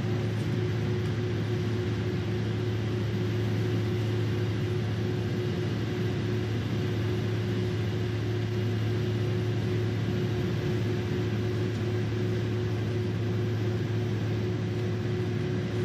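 Steady drone inside the cabin of a Boeing 767-300ER standing on the taxiway with its engines idling, made up of a strong low hum and a steady higher tone over an even rush of noise.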